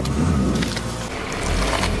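Car tyre rolling over bitter melons, the gourds cracking and squashing in a few sharp crunches about halfway through and again near the end, over the car's low engine hum.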